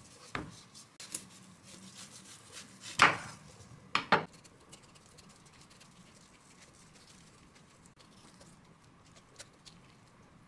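Knife cutting a netted orange-fleshed melon on a wooden cutting board: a few sharp knocks of the blade on the board, the loudest about three seconds in and a quick double knock a second later, then only faint small ticks as the flesh is cut free.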